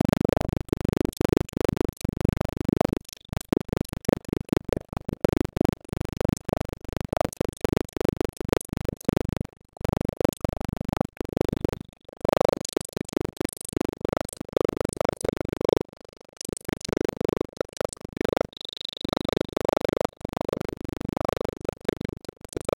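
Background music with a steady, rapid beat.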